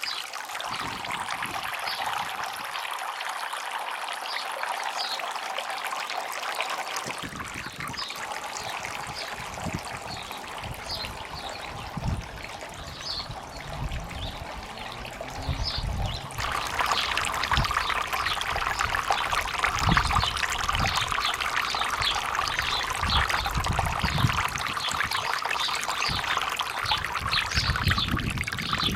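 Water trickling and splashing steadily down a small garden water feature's waterfall, becoming louder a little past halfway.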